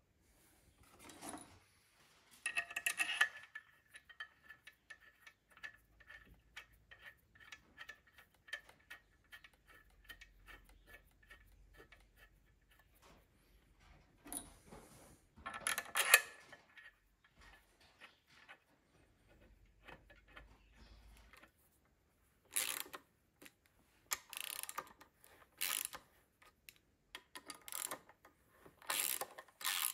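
Metal hand tools on a Unimog 421 clutch cover and its bolts: a loud clank with a ringing metal note about three seconds in, a run of light regular ticks like a ratchet, a single knock midway, then a string of sharper metallic clanks near the end as a spanner works a cover bolt.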